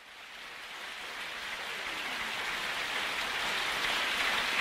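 Audience applause fading in, a dense even patter that grows steadily louder.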